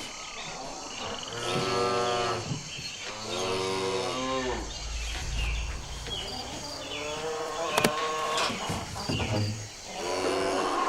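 Cattle mooing: several long, drawn-out moos in turn, with a brief sharp click just before the third one ends.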